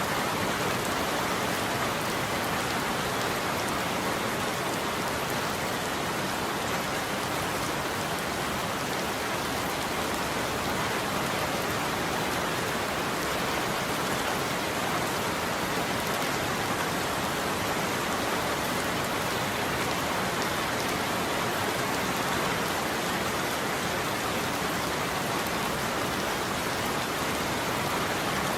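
Steady heavy rain pattering on a roof, an even unbroken hiss with no thunder.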